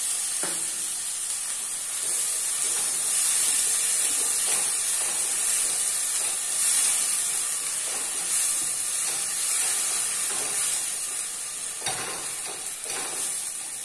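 Onion, ginger, garlic and green chilli paste sizzling in hot oil in a kadhai as it is sautéed, a steady frying hiss, with occasional scrapes and knocks of a wooden spatula stirring it against the pan, a couple of them near the end.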